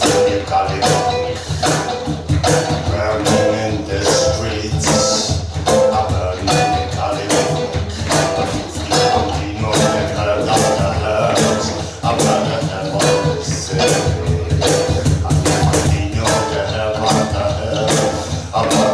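Live band playing an instrumental passage, with bass and drums keeping a steady beat.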